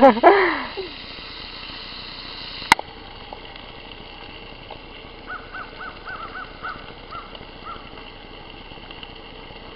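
Quiet outdoor camp ambience with a steady high hiss and a single sharp click a little under three seconds in. Midway comes a run of about ten faint, quick bird chirps.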